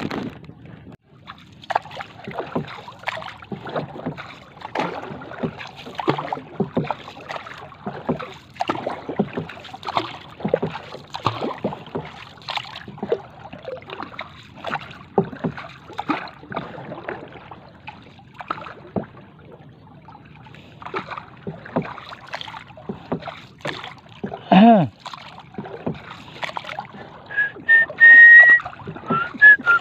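Wooden outrigger canoe being paddled: irregular splashing and sloshing of water against the paddle and hull. About 24 seconds in there is a loud short tone that falls in pitch, and near the end a brief whistle.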